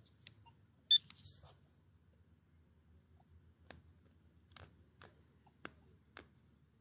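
A metal-detecting pinpointer gives one short electronic beep about a second in as a dug coin is held to it. Then come five sharp little clicks as fingers rub the dirt off the coin.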